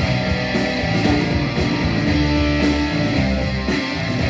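Live rock band playing an instrumental passage, with electric guitar over bass and drums, between sung lines.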